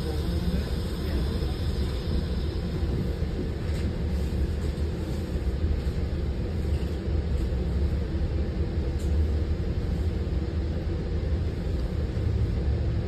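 Steady low rumble inside an Amtrak passenger car as the train pulls away from a station platform and gathers speed, with a couple of faint ticks.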